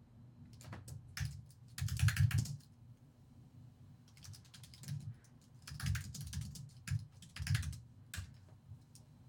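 Computer keyboard typing in several short bursts of rapid key clicks with pauses between them, the busiest burst about two seconds in.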